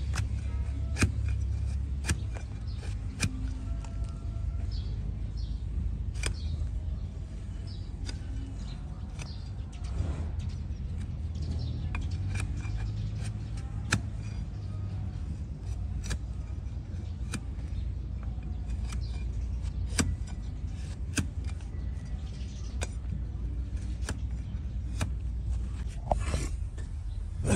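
Broad flat hoof-trimming knife cutting through an overgrown donkey hoof held on a wooden block: sharp, crisp cracks roughly every one to two seconds as each slice goes through the horn. A steady low rumble runs underneath.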